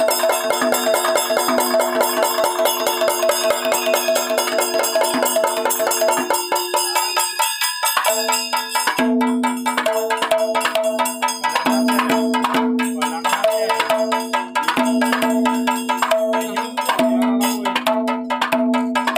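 Temple ritual music: rapid, continuous metallic clanging over held ringing tones. About eight seconds in the rhythm changes and the tones begin to pulse on and off about once a second.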